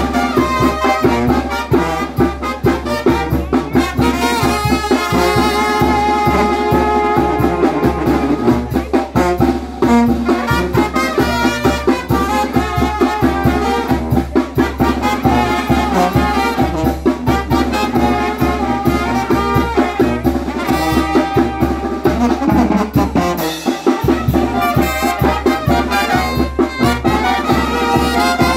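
A brass band playing lively dance music, trumpets carrying the tune over a steady, quick bass beat.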